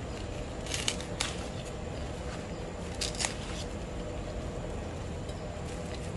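Knife cutting through pandan leaves: a few short, crisp snaps, a cluster about a second in and another about three seconds in, over a steady background hiss.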